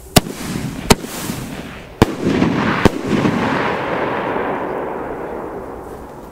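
A 37 mm consumer firework battery firing: four sharp bangs in under three seconds as its shells burst in the air. A rushing noise between and after the bangs fades away over the next few seconds.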